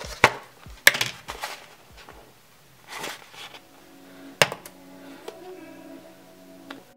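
Kitchen handling noises: a handful of sharp knocks and clatters as a paper food tray and a cup are picked up and set down on the counter, the loudest in the first second. Faint background music plays underneath.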